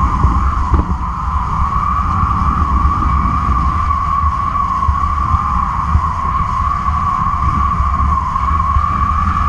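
Kite line humming in the wind: one steady high hum that wavers slightly in pitch, over the rumble of wind buffeting a camera mounted on the line.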